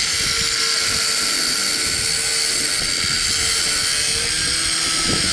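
Corded angle grinder running steadily as it cuts through a metal bimini-frame tube to shorten it, a loud, even, high-pitched whine and hiss.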